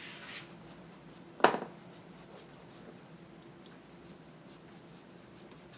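Flat paintbrush stroking oil paint onto a canvas panel: faint, scratchy brushing. One sharp knock about a second and a half in is the loudest sound.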